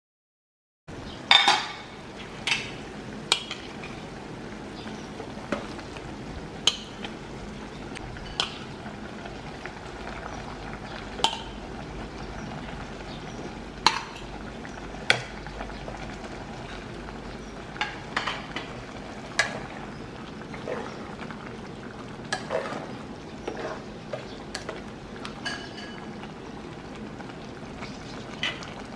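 A metal spoon clinks and scrapes against a ceramic plate and a steel pot as fish and broth are spooned into the pot. The sharp clinks come irregularly over a steady hiss, starting about a second in.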